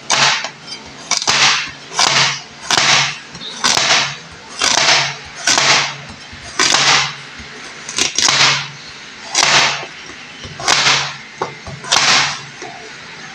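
Chef's knife slicing a raw carrot into rounds on a cutting board: a steady run of short slicing cuts, about one and a half a second, roughly twenty in all.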